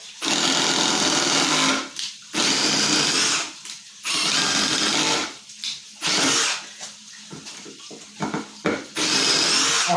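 Cordless impact driver triggered in about five bursts of half a second to a second and a half each, its motor and hammer running with a high whine, with short pauses between.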